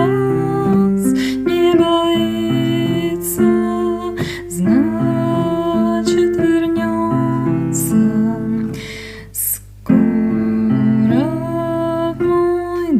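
Instrumental passage of a slow song, piano-like keyboard playing chords and a melody, with a brief near-pause about nine seconds in before it picks up again.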